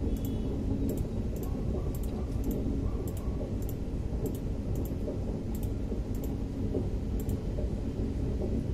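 Light, sharp clicks, often in pairs, come about every half second over a steady low rumble.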